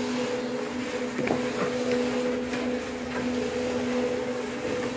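Conical dough rounder running with a steady electric hum: a constant low drone with a higher tone above it.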